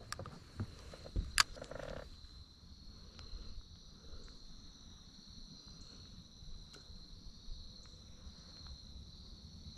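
Steady high-pitched chorus of insects, with a sharp click about a second and a half in and a few low knocks near the start.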